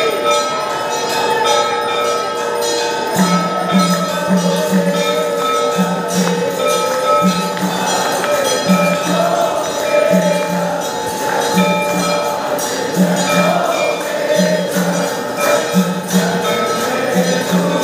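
Temple aarti: bells and jingling cymbals ringing continuously, with voices chanting. A low beat, struck in pairs, comes in about three seconds in and repeats through the rest.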